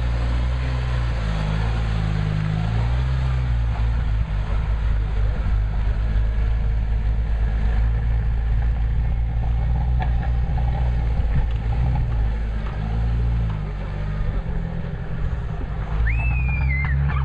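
Jeep Wrangler YJ engine running in low gear as it crawls over a rough dirt trail, the revs rising and falling several times.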